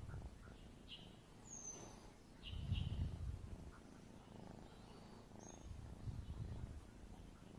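Young orange tabby kitten purring while being petted, a low rumble that swells in two louder stretches.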